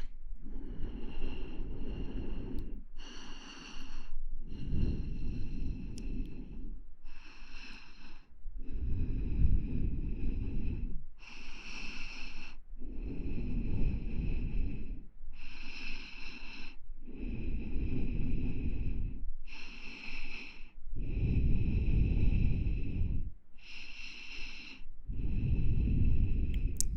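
Slow breathing close into an ASMR microphone: about six or seven breaths in and out, each a second or two long, every other one with a deep rumble.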